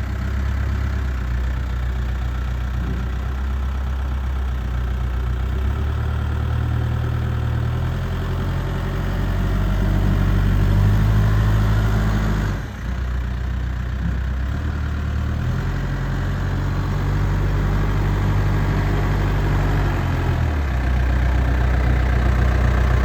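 Diesel engine of a Case 580 Super M Series 2 backhoe loader running, its engine note shifting up and down several times, with a brief dip in level just over halfway.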